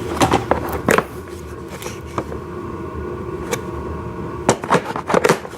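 Loose bucket-support parts for a ride-on toy excavator clicking and knocking as they are handled and sorted, a few sharp taps in the first second and a few more near the end, over a steady low hum.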